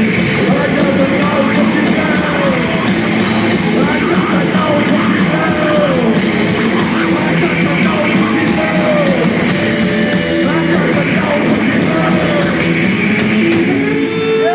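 Live rock band playing loud, distorted garage rock, with electric guitar and drums, through the closing instrumental stretch of the song.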